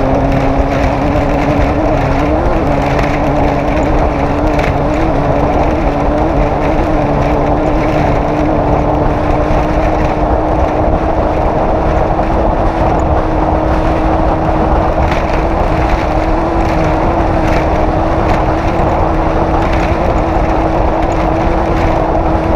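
Off-road race car's engine running hard at a steady speed, with a short rise in pitch about two and a half seconds in, then holding nearly level and creeping slightly higher.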